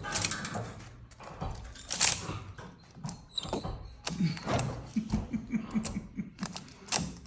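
Tape measure being handled and picked at by a capuchin monkey: its plastic case and tape give irregular clicks, knocks and rattles.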